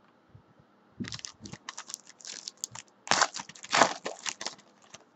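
A Panini basketball card foil pack being crinkled and torn open by hand: a busy run of crinkling and tearing rustles starting about a second in, loudest a little past the middle, then tailing off near the end.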